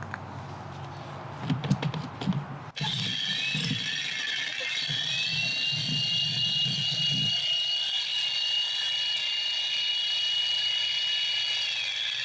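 Electric jackhammer with a lock-on trigger, starting suddenly about three seconds in after a few knocks and then running steadily with a high, steady whine that drops in pitch near the end.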